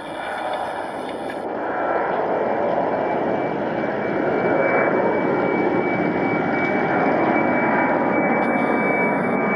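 Boeing 747-400 freighter's four jet engines at takeoff power as it climbs out overhead: a steady rushing roar with a high whine held on one pitch, growing louder over the first few seconds and then holding.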